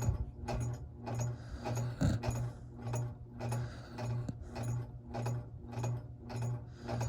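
Snoring in quick, even pulses, about three a second, each pulse a low buzz with a rattly edge.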